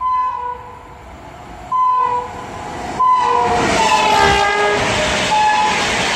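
Locomotive horn of the Howrah–Patna Jan Shatabdi Express sounding three blasts as the train approaches at speed. The third blast slides down in pitch as the locomotive passes, then comes the loud rush and clatter of the coaches going by, with one more short horn note about halfway through.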